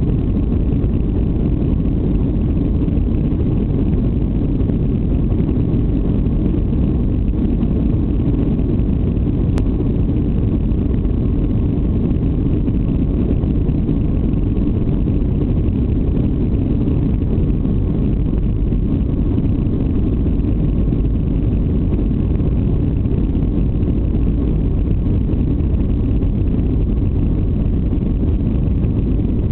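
Jet airliner's engines and airframe noise: a steady, deep rumble that neither rises nor falls.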